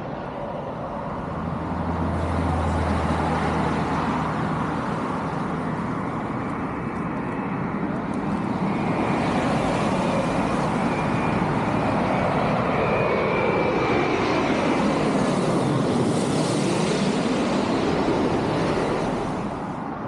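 A jet airliner passing low overhead on approach to land: its engine noise and fan whine build from about nine seconds in, sweep past, and drop away near the end. Road traffic runs underneath, with a heavy vehicle's engine rumbling in the first few seconds.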